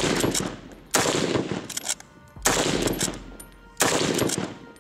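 Four shots from a Lee-Enfield bolt-action rifle, spaced about a second to a second and a half apart, each followed by an echoing tail that fades away.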